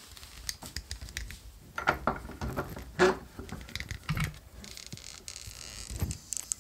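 Small clicks and knocks of a cast iron bench vise being handled as the glued leather sheath is set between its taped jaws to be clamped, the loudest knock about three seconds in. A lighter scraping follows near the end.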